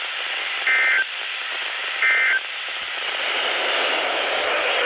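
Two short, high data-tone bursts about 1.3 seconds apart: the Emergency Alert System end-of-message (SAME) code that closes the alert. They sound over steady radio static hiss, which grows slightly louder after the second burst.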